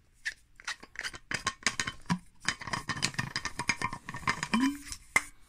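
Nalgene stainless steel water bottle and its lid being handled: a run of small clicks and metallic clinks, some with a brief ringing tone.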